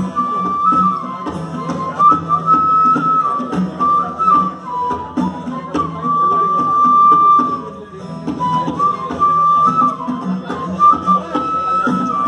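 Live instrumental music: a flute carries the melody over an acoustic guitar and a dholak. The flute holds one long note about six seconds in, and the music dips briefly just before eight seconds.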